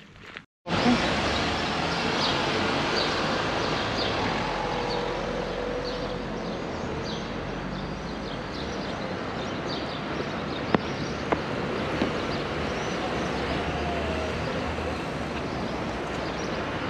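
Steady town-street noise with passing traffic, and a few sharp clicks near the middle.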